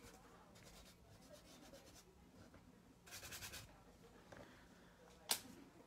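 Very faint rubbing of a fingertip spreading acrylic paint over canvas, with a soft scratchy stretch about three seconds in and a single sharp click near the end.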